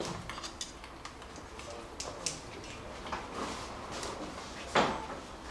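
Scattered light clicks and knocks of tools and parts being handled, with one louder knock near the end.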